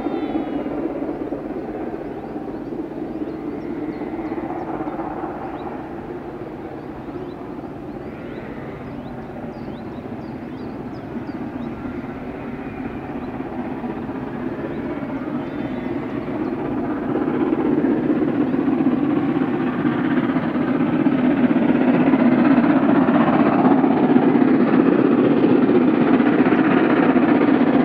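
LMS Princess Royal class Pacific No. 6201 Princess Elizabeth, a four-cylinder steam locomotive, working hard up a 1-in-96 gradient. Its exhaust is a continuous rush that grows steadily louder as it approaches and is loudest over the last several seconds.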